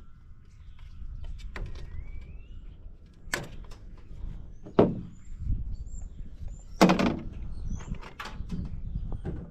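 Metal panels and parts of a microwave knocking and clanking as it is pulled apart by hand: a handful of separate sharp knocks a second or two apart, the loudest a little past the middle.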